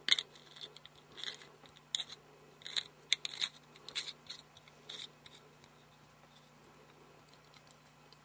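A poker chip and a gold metal money clip being handled, the chip slipped into the clip: a string of short clicks and scrapes, about one a second, which stop about five seconds in.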